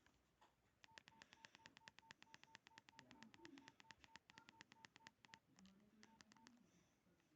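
Nokia 1616 mobile phone keypad tones: a fast, even run of short beeps, about eight a second for four to five seconds, then a short pause and three more beeps.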